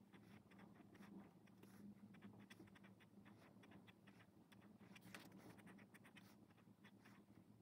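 Faint scratching of a fine-tipped pen on sketchbook paper, many quick short strokes as lines are hatched in.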